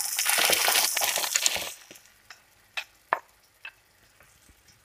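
Tomato sauce hitting hot oil and fried onion in a frying pan, sizzling loudly for nearly two seconds before dying away. A few light clicks and taps follow as the bowl and spatula touch the pan.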